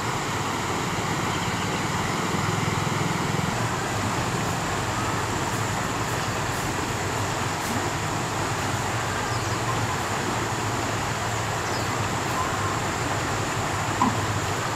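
Steady rushing noise of a swollen, fast-flowing muddy river, with a brief click near the end.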